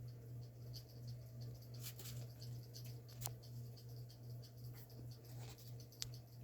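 Vintage Penncrest box fan coasting down after being switched off: a faint low hum with a slow, regular pulsing and light ticking from the spinning fan, and two sharp clicks about three and six seconds in. The long free spin fits the fan's GE motor being still well oiled.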